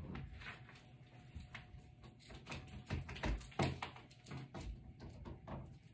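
Faint scattered clicks, knocks and rustling of handling as a scent warmer is set down on a ledge and its cord is plugged into a wall outlet, with a few louder knocks about three seconds in.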